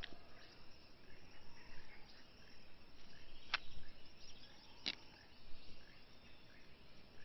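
Faint rainforest ambience: insects and scattered short bird chirps over a soft hiss, with two sharp clicks about a second apart midway.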